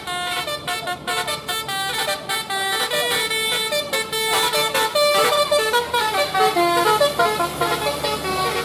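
Indonesian bus 'telolet basuri' musical air horn playing a quick melody of short notes that step up and down without a break, a little louder in the second half.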